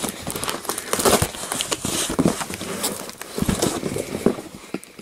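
Cardboard shipping box being handled and opened up close: irregular rustling, scraping and knocks of cardboard and packing, quieter near the end.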